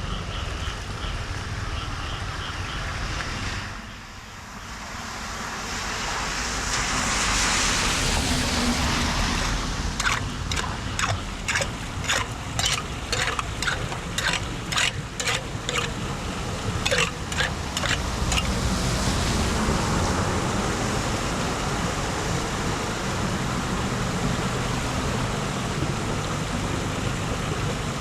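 Floodwater rushing and splashing at a street drain. In the middle there is a run of sharp strokes, about two a second.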